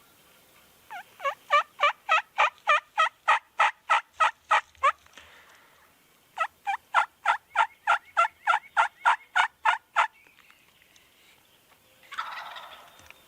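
Two long runs of turkey yelps, evenly spaced at about three to four notes a second, with a short pause between them. Near the end comes a short rattling burst that sounds like a gobble in answer.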